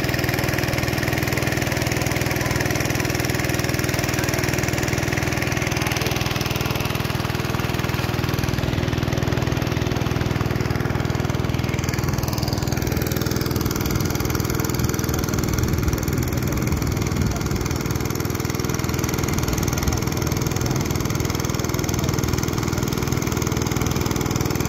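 Small engine-driven water pump running steadily, pumping water out to drain the fish pond, with water gushing from its outlet pipe.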